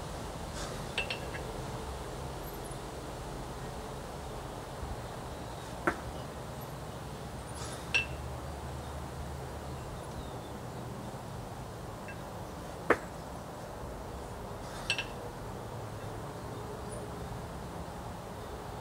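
A pair of 24 kg kettlebells clinking sharply against each other, about five times at irregular intervals, during double kettlebell jerk reps, over a steady background hiss.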